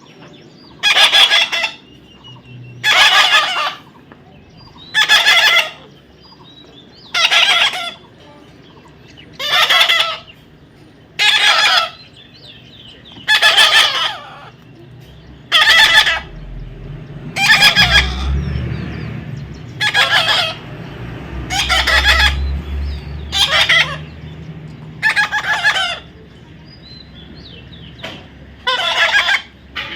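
Parrot squawking: about fifteen loud, harsh calls, each under a second long, coming roughly every two seconds. A low rumble sits under the calls partway through.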